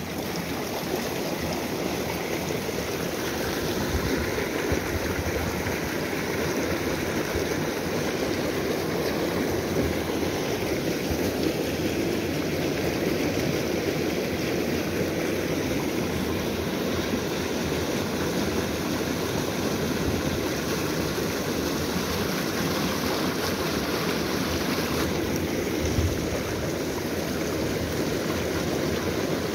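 Shallow creek water running over rocks, a steady, even wash of sound.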